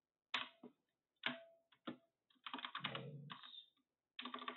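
Typing on a computer keyboard: a few separate keystrokes in the first two seconds, then quick runs of keys.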